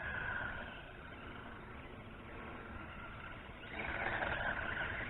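1:18-scale electric RC buggy driving on a wet surface, its electric motor whining over tyre hiss. It grows louder about three and a half seconds in.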